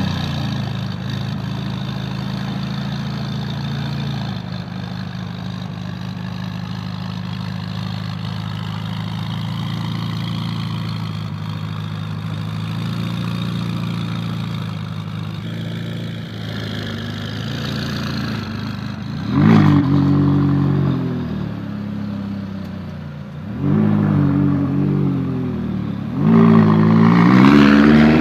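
McLaren 570S's 3.8-litre twin-turbo V8 idling steadily, then revved in short blips, once about two-thirds of the way through and again a few seconds later. Near the end the revs rise several times as the car pulls away.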